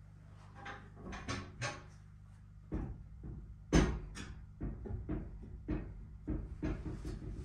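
Jøtul 602 cast-iron wood stove clunking against its brick hearth as it is rocked and shifted by hand: a run of short knocks, the loudest about four seconds in. The clunks come from a leg that sits short and needs a shim.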